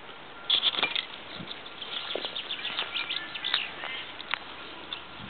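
Footsteps rustling and crackling through dry grass and dead leaves: a quick, irregular run of short crackles, loudest about half a second in.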